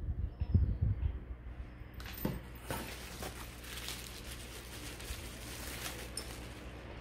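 Plastic bubble wrap crinkling and rustling as it is handled, starting about two seconds in. A few dull low knocks of handling come in the first second.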